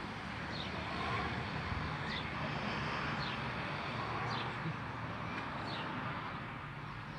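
A distant box truck running steadily as it drives around the course, swelling slightly in the middle, with short bird chirps about once a second.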